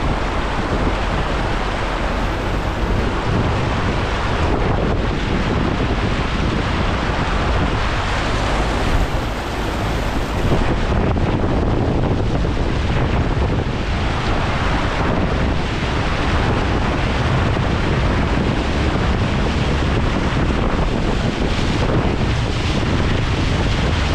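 Floodwater rushing and splashing against a car as it wades through a flooded road, a steady churning wash, with wind buffeting the microphone.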